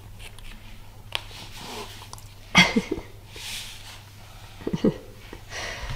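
A baby's short breathy huffs and grunts as he strains and twists on the mat, the loudest about halfway through and a couple more near the end.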